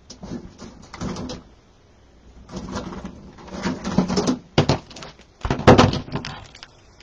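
Handling noises of a ribbon spool being turned and knocked against a wooden bow maker and cutting mat, with scissors picked up off the mat: irregular rustles and knocks, the loudest a little before six seconds in.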